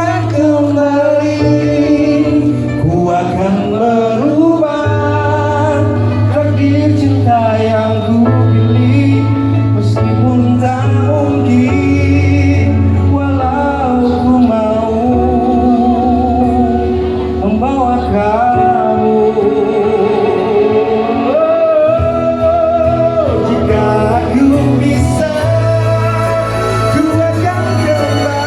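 A solo singing voice with instrumental accompaniment. The singer holds long notes with a marked vibrato over a steady bass line.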